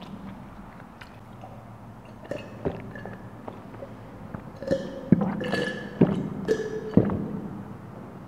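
A person drinking water from a glass, with three wet gulps about a second apart in the second half.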